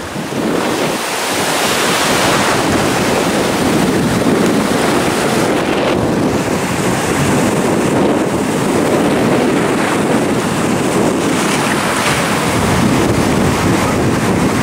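Ocean surf breaking and washing around in the shallows, a steady loud rush of churning water, with wind buffeting the microphone.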